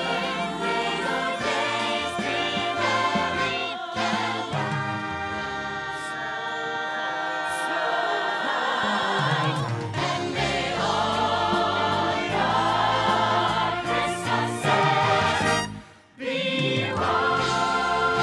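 Music with a choir singing under the closing credits. It cuts out for a moment about sixteen seconds in, then starts again.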